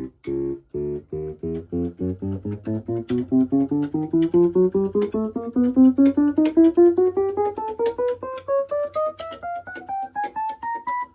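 Casiotone 401 electronic keyboard played one key at a time, every key in order, a steady rising chromatic run from the lowest note to the top of the keyboard at about four to five notes a second: a test that every key sounds.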